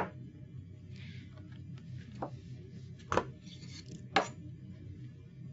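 Kitchen knife chopping a tomato on a cutting board: a few separate knocks, the sharpest right at the start and three more about a second apart, with faint scraping between.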